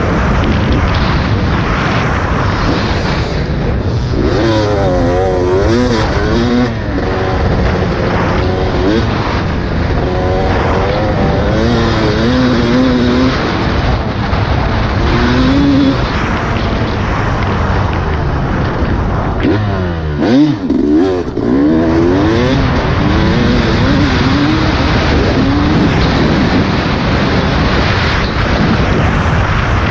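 Dirt bike engine revving on a motocross track, its pitch rising and falling again and again as the throttle opens and closes, over a steady rushing noise.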